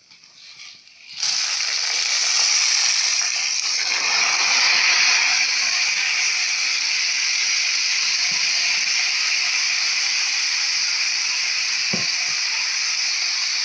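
Washed rice tipped into a pot of hot oil and browned vermicelli, frying with a loud, steady sizzle that starts suddenly about a second in. There is a single knock near the end.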